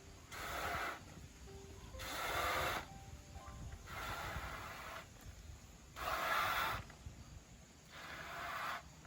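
A person blowing air by mouth into a rubber balloon to inflate it: five long, rushing puffs about two seconds apart.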